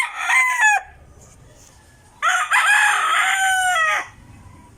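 Rooster crowing twice. The end of one crow fades out in the first second. About two seconds in comes a full, slightly lower-pitched crow lasting nearly two seconds, ending in a falling tail.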